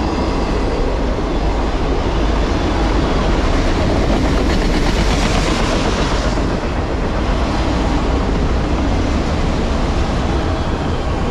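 Empty autorack freight cars rolling past at close range: loud, steady noise of steel wheels running on the rails.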